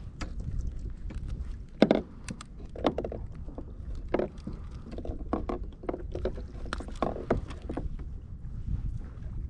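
Scattered short clicks and knocks of a small black sea bass being unhooked and handled by hand, one sharper knock about two seconds in, over a steady low rumble.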